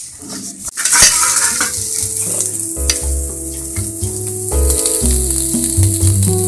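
Spiced potato mixture sizzling as it fries in oil in an iron wok, with a sharp knock about a second in. Background music with a bass line comes in partway through.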